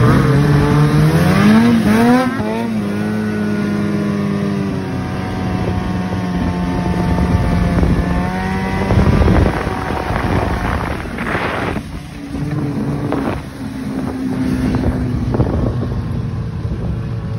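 Ski-Doo snowmobile engine under way: the revs climb over the first two seconds, then hold a steady pitch, drop briefly about twelve seconds in and pick up again.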